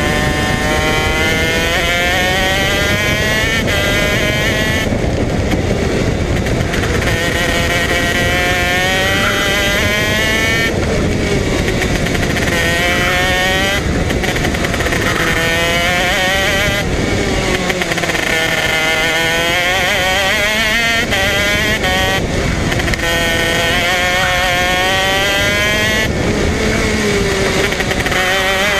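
Two-stroke 125 cc KZ shifter kart engine, made by Modena Engines, heard on board at full race pace. Its pitch climbs and falls again and again as the kart accelerates down the straights and lifts for the corners.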